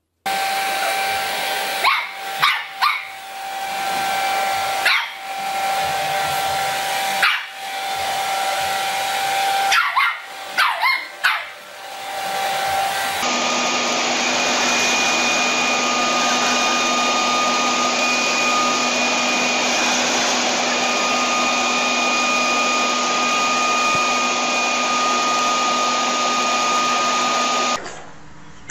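A hair dryer runs with a steady rush and whine while a puppy yelps several times over it. About halfway through, it changes to a leaf blower running steadily with a higher whine.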